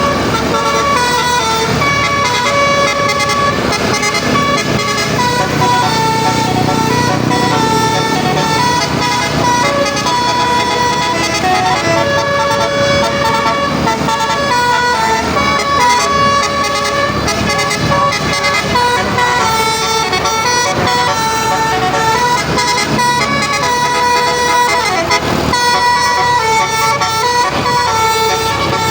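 A bus's telolet horn, a multi-tone musical air horn, playing a continuous tune of held notes that step up and down in pitch.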